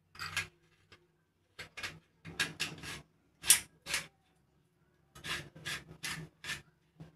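Stainless-steel murukku press being screwed together by hand, its metal threads rasping in a series of short strokes that come in several bursts.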